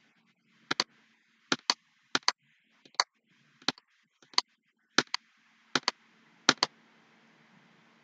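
Sharp clicks, mostly in quick pairs, repeating at an even pace of about one pair every three quarters of a second, over a faint steady hum.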